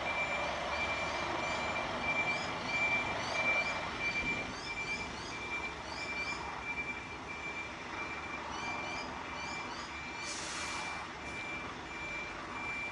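Reversing beeper on a Scania fire pumper, sounding evenly spaced single-tone beeps over the truck's engine as it backs into the bay, stopping near the end. A short burst of air hiss comes about ten seconds in.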